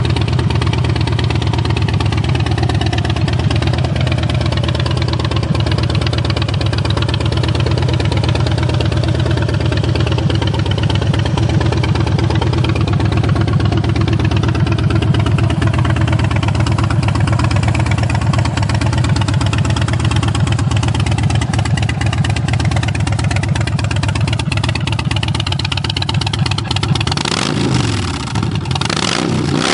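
2008 Harley-Davidson Dyna Low Rider's Twin Cam 96 V-twin idling through Vance & Hines Short Shots exhaust with a steady low pulse. Near the end it is revved a few times, the pitch rising and falling.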